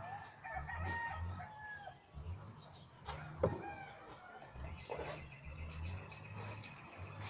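A rooster crowing with chickens clucking, and one sharp knock about three and a half seconds in.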